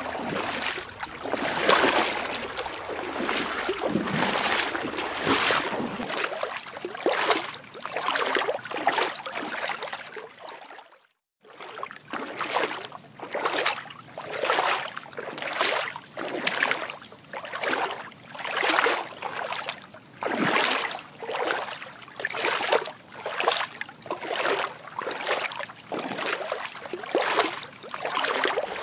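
Water sloshing in rhythmic surges, roughly one a second, cutting out briefly about eleven seconds in.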